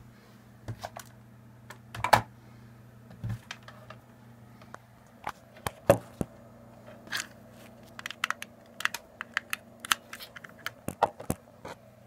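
Irregular clicks, taps and knocks of hands handling cables and connectors at the back of a running computer, with single louder knocks about two seconds in and near the middle, and a run of quick clicks later on. A steady low hum lies underneath.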